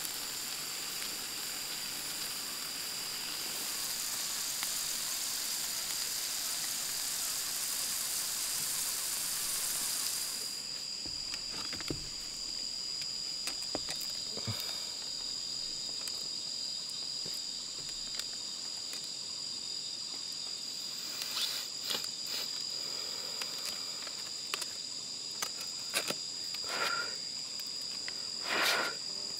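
Insects chirring steadily at a high pitch throughout. A broad hiss fills the first ten seconds and cuts off suddenly, after which scattered light knocks and rustles come and go, busier near the end.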